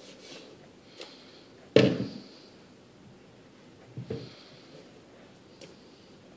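Knife-handling knocks on a plastic cutting board: a sharp, loud knock about two seconds in and a softer double thump about four seconds in as the long Bubba fillet knife is laid down on the board, with a few faint clicks and scrapes around them.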